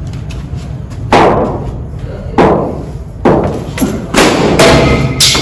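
Cricket practice balls striking hard surfaces in an indoor net: seven sharp thuds, each ringing out briefly. The first three come about a second apart and the rest follow in quicker succession.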